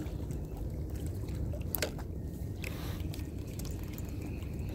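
Wind rumbling on the microphone over small water trickling and lapping among shoreline rocks, with one sharp click a little under two seconds in.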